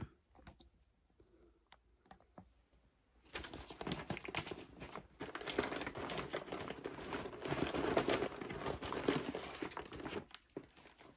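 Large brown kraft-paper mailer crinkling and rustling as hands work at its end to open it, starting about three seconds in and running until shortly before the end, with a brief lull around five seconds; only a few faint clicks before.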